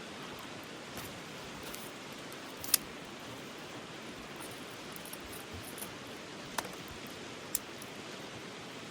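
Steady rushing of a flowing mountain stream, with a few sharp clicks over it: the loudest about a third of the way in and two more near the end.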